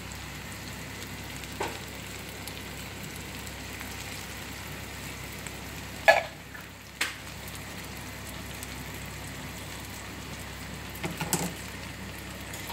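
Scrambled eggs with tomato, onion and mushroom sizzling steadily in oil in a frying pan. A few short knocks and scrapes of a spatula in the pan break in, the loudest about six seconds in.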